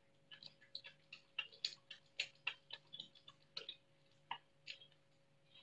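Young otter chewing a raw catfish, teeth crunching through the fish's head in a quick, irregular run of sharp clicks and crackles.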